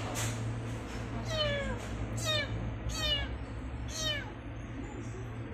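Young calico kitten meowing four times, each call high and sliding down in pitch, the first the longest, over a steady low hum.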